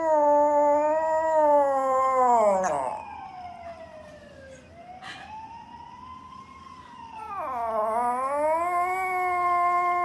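Small poodle-type puppy howling: a long drawn-out howl that falls away in pitch about three seconds in, a softer, quieter howl in the middle, then a second long howl that dips and rises again from about three-quarters of the way through. A single sharp click about halfway through.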